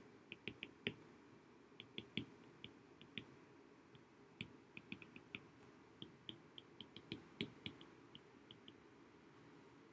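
Stylus tip tapping on a tablet's glass screen during handwriting: a string of faint, irregular clicks, several a second in clusters.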